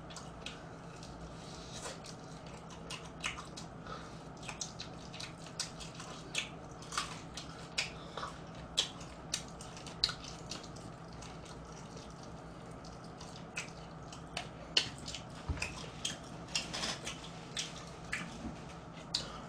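A person eating crispy fried chicken by hand, biting and chewing. The chewing gives irregular small crunches and clicks over a faint low hum.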